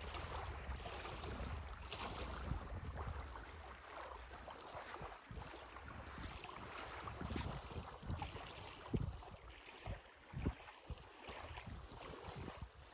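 Wind buffeting the microphone, heaviest in the first few seconds and gusting unevenly after, over the wash of small waves on a Lake Superior beach.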